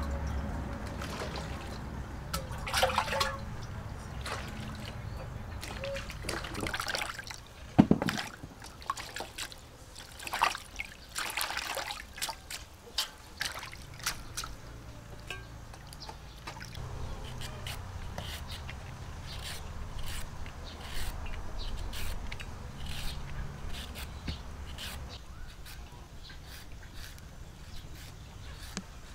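Water pouring and splashing as a carrot and herbs are rinsed in metal bowls, with sharp clinks and knocks of the bowls. Near the end, a hand peeler scrapes a carrot in quick short strokes.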